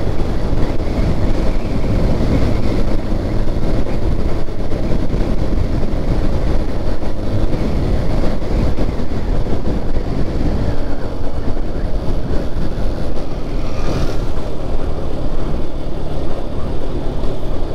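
Steady engine and road noise of a vehicle driving at speed, a continuous low rumble, with one brief click about fourteen seconds in.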